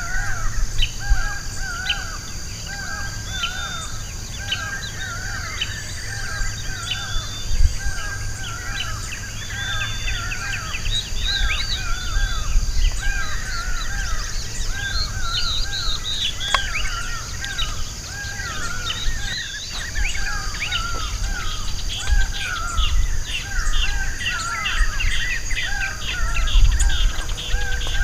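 Wild birds calling: one bird repeats a short harsh call about once a second, with quicker chirps from others, busier in the second half, over a steady high-pitched drone and a low rumble.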